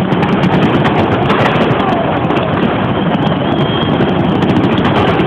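Fireworks crackling, many sharp cracks over a steady, loud stadium crowd din, recorded through a small, low-quality microphone.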